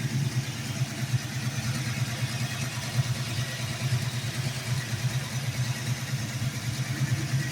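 1968 Plymouth Barracuda Formula S's 340 small-block V8 idling, a steady pulsing low exhaust rumble.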